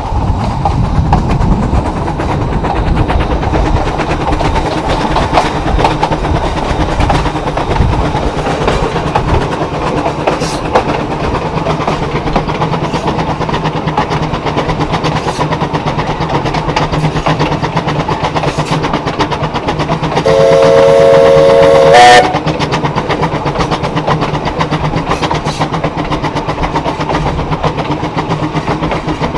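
Baldwin-built narrow-gauge steam locomotive No. 2 running along the track, a steady rumble with dense rail clatter. About two-thirds of the way through, its whistle gives one chord-like blast of about two seconds that rises in pitch just before it stops.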